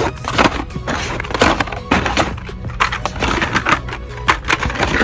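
Hot Wheels blister cards clattering and rustling as a hand flips through a stack of them, their plastic bubbles and card backs knocking together in quick, irregular clicks.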